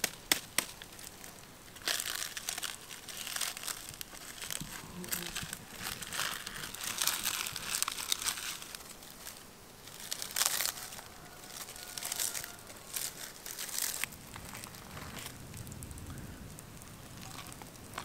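Dry, charred husks of fire-roasted corn crinkling and crackling as they are pulled and peeled back from the ears, in spells of crisp rustling with sharp ticks.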